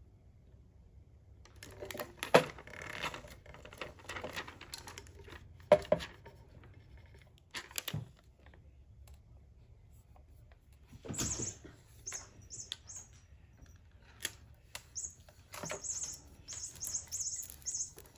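Handling noise from vinyl stencils on transfer tape being pressed onto a glitter tumbler: rustling of the tape, a few sharp taps and clicks, two of them loud in the first six seconds, and later runs of short high squeaks as fingers work the transfer tape against the tumbler.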